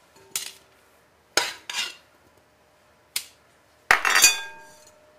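Metal spoon clinking against a metal hand potato ricer as boiled potato cubes are scooped into its basket: several separate clinks and taps, the loudest cluster about four seconds in, with a brief ringing after it.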